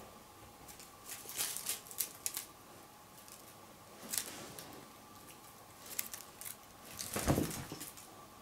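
Scattered rustles and light taps as a cat plays with a feather wand toy on a fabric-covered bed, in short bursts. About seven seconds in comes the loudest sound, a soft thump with rustling.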